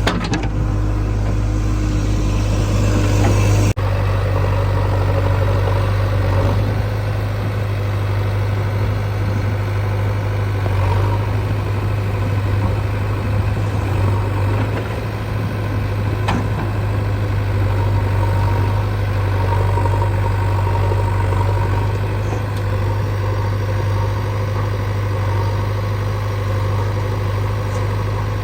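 Diesel engines of heavy earthmoving machinery running steadily with a deep, even drone, with an abrupt change in the sound about four seconds in.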